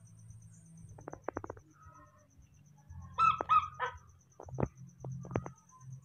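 Newborn baby monkey calling: three short, harsh cries in quick succession about three seconds in, sounding like a duck's quack, amid a few scattered light clicks.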